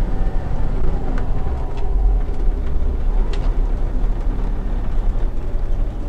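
Engine of a 2000 International Blue Bird school bus heard from inside the cab, rumbling as the driver downshifts the six-speed Spicer manual gearbox, using engine braking to slow the bus. A few light clicks sound over the engine.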